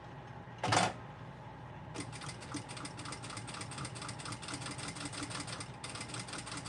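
Sewing machine stitching around the edge of a vinyl bookmark, a fast even run of about ten stitches a second that starts about two seconds in and pauses briefly near the end, over the machine motor's steady hum. There is a short knock about a second in.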